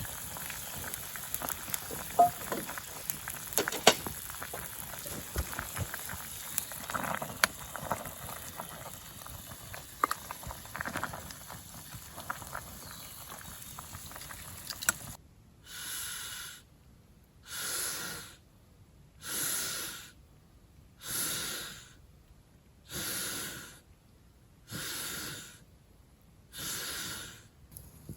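A wood fire crackling and popping, with many sharp snaps, for about fifteen seconds. After a sudden break, a steady repeating animal call takes over: each call about a second long, coming roughly every two seconds.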